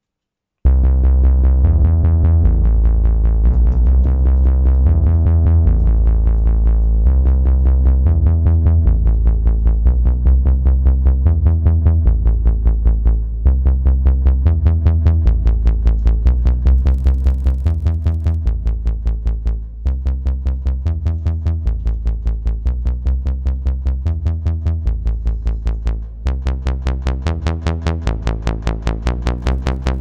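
Arturia Pigments software synthesizer playing a bass patch as a fast sequence of evenly repeated notes with a heavy low end, starting about half a second in. Its tone turns brighter partway through as the filter cutoff and wavetable position are turned on a hardware control surface.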